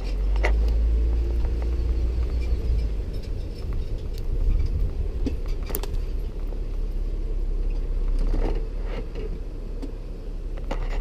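Jeep on the move, heard from inside the cab: a steady low rumble of engine and road, with scattered light clinks and rattles.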